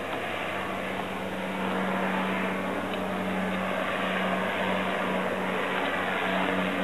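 A steady, low engine hum over a hiss of background noise, slowly growing louder.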